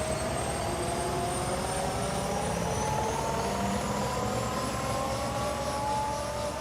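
Helicopter running in flight: a turbine whine that rises slowly in pitch over a steady low throb of the rotor.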